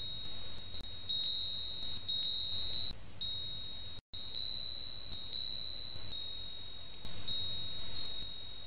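A steady high-pitched electronic tone over faint hiss, cutting out briefly about four seconds in.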